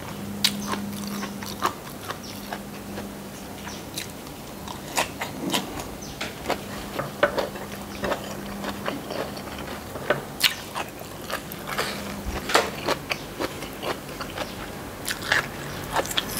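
A person chewing a mouthful of food close to the microphone, with frequent irregular short clicks and smacks over a steady low hum.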